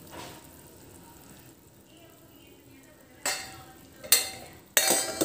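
Quiet kitchen background, then three loud clattering knocks of metal cookware and utensils in the last two seconds.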